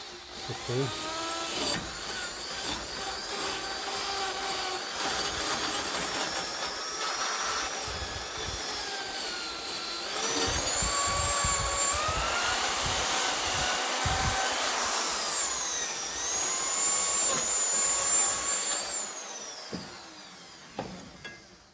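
Electric power tool spinning against the steel dynamo bracket of a Ferguson tractor to clean it up: a whining motor over a harsh scouring noise. The pitch dips and climbs as the tool is pressed into the metal, then winds down and stops near the end.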